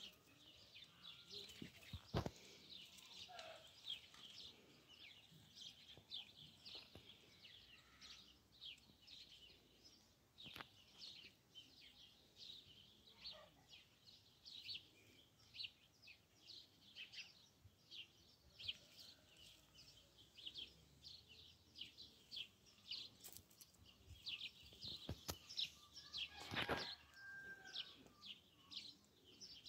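Faint chirping of small birds: many quick, high chirps follow one another throughout, with a few soft knocks or rustles in between.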